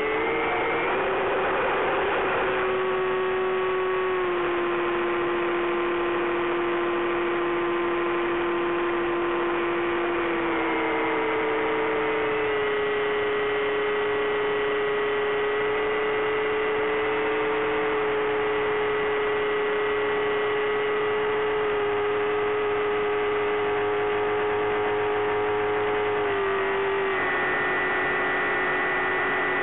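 Electric motor and pusher propeller of a Bixler 3 model plane, heard from onboard, making a steady humming whine. Its pitch steps up or down a few times as the throttle is changed. A rushing noise lies over it for the first couple of seconds.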